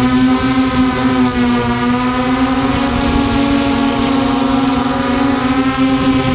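Hexacopter's electric motors and propellers humming steadily in flight, heard up close from the camera on board; one strong buzzing tone with a stack of overtones whose pitch wavers slightly.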